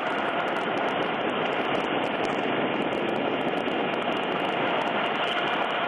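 HH-65C Dolphin rescue helicopter's twin turboshaft engines and rotor running steadily in a hover: an even rushing noise with a faint steady whine.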